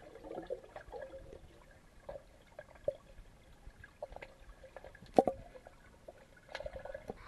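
Swimming-pool water heard underwater through a submerged camera: a faint muffled wash with scattered bubble clicks and pops, one louder pop about five seconds in.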